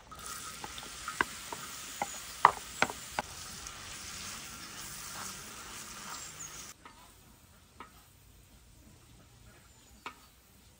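Chopped onions landing in hot oil with turmeric in a black steel pan, sizzling with a steady hiss and sharp clicks as the pieces hit. About two-thirds of the way in the loud sizzle cuts off suddenly, leaving a faint sizzle and a few light taps as a wooden spatula stirs the onions.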